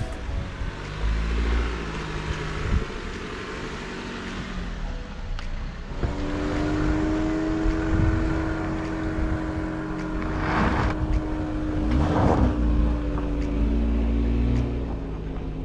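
Toyota RAV4 driving a muddy dirt trail: a low rumble of engine and road noise, with the engine settling into a steady drone about six seconds in. Two brief louder rushes of noise come late on, about two seconds apart.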